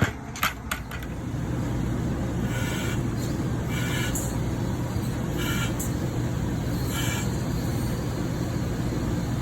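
A few sharp clicks, then an engine-driven machine comes up to a steady running rumble about a second in. A short hiss repeats about every second and a half over the rumble.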